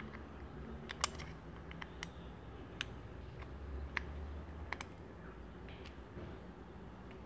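Airsoft gas-blowback pistol being handled, giving a handful of short, sharp clicks at irregular intervals, two in quick succession about a second in.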